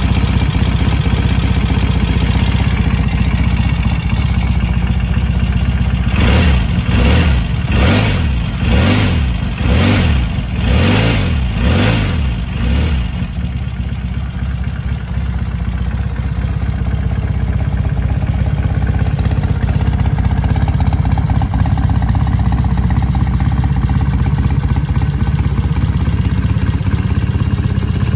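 1964 Royal Enfield Interceptor's 736 cc air-cooled parallel-twin engine running at idle, then blipped up and down about once a second for some seven seconds a quarter of the way in, before settling back to a steady idle.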